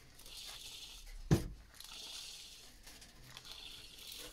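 Soft rustling in three slow swells as copper wire is unwound from a solenoid coil by hand, with one sharp click about a second in.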